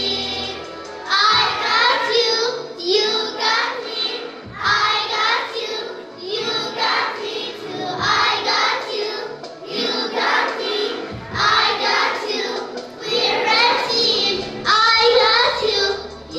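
Group of children singing a song with musical accompaniment, in short phrases.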